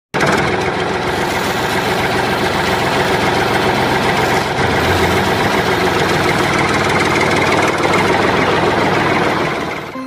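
A motor running steadily without a break, fading out in the last moment.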